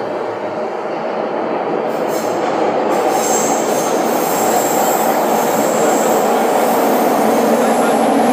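JR East 205 series electric train running on the Saikyō Line, heard from inside the passenger car: a steady rumble of wheels on rail that grows gradually louder. A high wheel squeal sets in about three seconds in.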